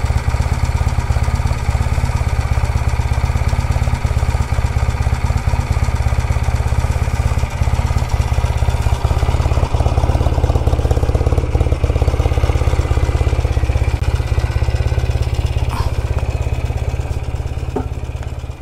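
Motorcycle engine running steadily at idle, low in pitch and even, with no revving.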